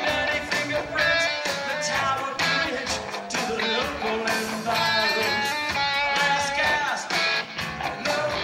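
Live rock band playing loud: electric guitar and drums, with a man singing into a microphone.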